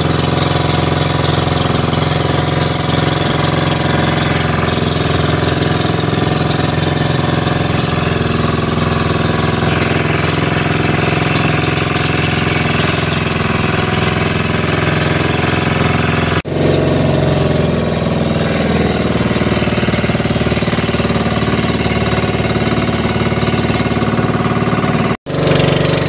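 Engine of a motorized outrigger boat (bangka) running steadily under way, a loud continuous drone with a hiss over it. It drops out briefly twice, and its pitch shifts slightly after the first break.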